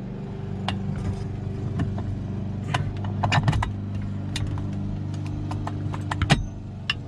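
Quick-release steering wheel hub being worked: a run of sharp metallic clicks and rattles from about three seconds in to just past six seconds. The BMW E36's engine runs steadily underneath.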